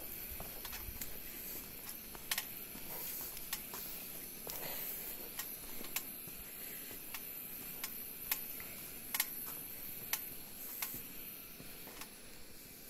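Footsteps on the gritty marl floor of a cave passage: sharp, uneven clicks roughly once a second over a steady hiss.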